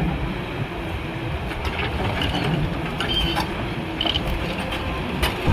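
Machinery or a vehicle running with a steady low rumble and irregular rattling and clicking, with a few short high-pitched tones in the middle.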